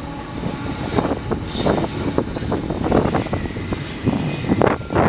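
Double-stack intermodal train's container well cars rolling past: a steady rumble of wheels on rail with irregular clanks and rattles from the cars.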